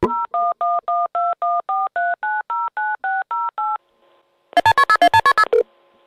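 Touch-tone telephone keypad dialing a number: a quick run of about fifteen dual-tone beeps, about four a second. The dialing is followed shortly by a one-second burst of rapid pulsing tones, then a faint steady line hum.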